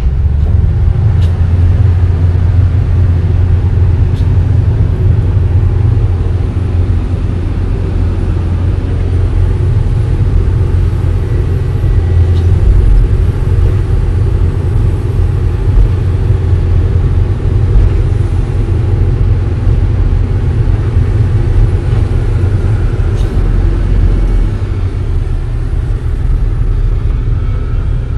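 Excavator's diesel engine running steadily: a loud, low rumble heard from inside the operator's cab, with a few faint ticks.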